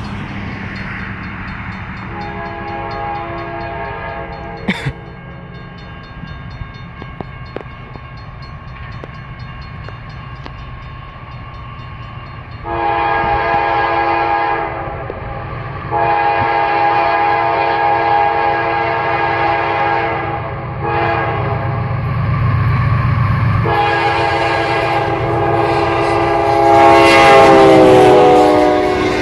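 Approaching CSX freight locomotive's multi-note air horn blowing several long blasts, growing louder as the train nears. The last blast drops in pitch as the locomotive passes close by. Under it runs the low rumble of the diesel engines.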